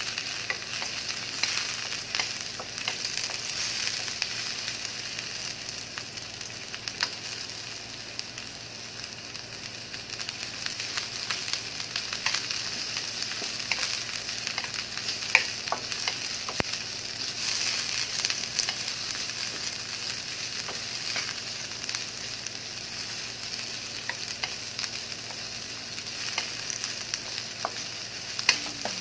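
Onions sizzling in olive oil in a metal wok, stirred with a wooden spatula that scrapes and taps against the pan now and then. The frying hiss is steady, with small crackles and clicks over it.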